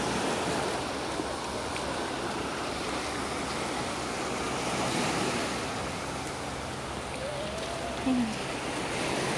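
Small sea waves washing onto a sandy beach: a steady wash of surf, with a little wind on the microphone. A brief faint pitched sound comes in about seven to eight seconds in.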